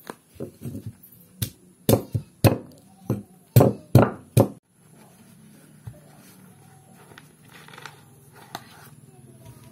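Cleaver chopping through the stem end of an ear of corn in its husk on a wooden chopping block: about a dozen sharp chops over the first four and a half seconds, the heaviest in the middle of the run.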